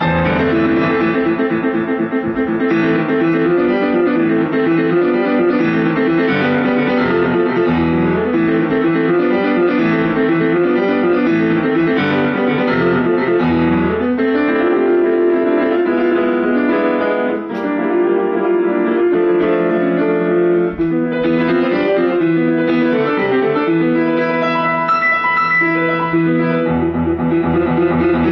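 Steinway & Sons grand piano played solo: a continuous stream of quick notes with a bass line beneath, without a break.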